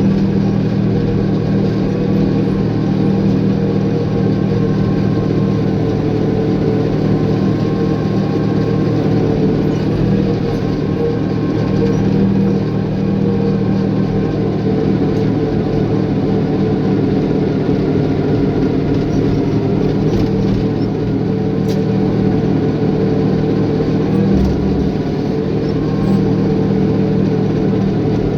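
Caterpillar bulldozer's diesel engine running steadily with a deep, even drone, with a few faint clinks over it.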